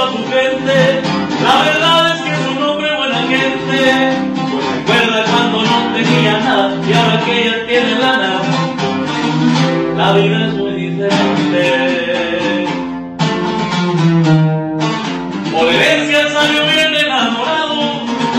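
Recorded corrido music with plucked and strummed guitars under a melody line, running continuously, with a brief dip in level about two thirds of the way through.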